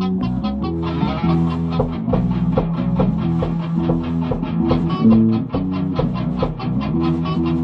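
A band playing an instrumental passage: guitar chords over bass guitar, with a steady run of short ticks about four a second.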